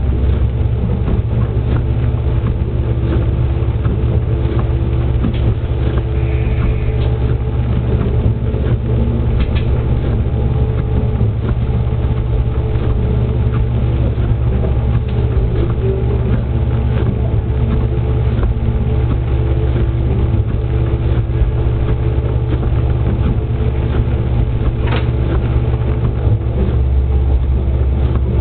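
JR West KiHa 120 diesel railcar under way, its engine droning steadily with wheels running on the rails and occasional sharp clicks over the track.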